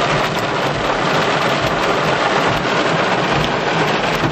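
Heavy thunderstorm rain pounding steadily on a car's roof and windshield, heard from inside the car.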